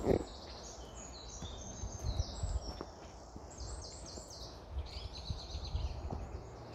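Footsteps on a woodland dirt path under birdsong: quick, repeated high trilled phrases from birds in the trees, with soft low footfalls that come in clusters. A brief louder burst right at the start.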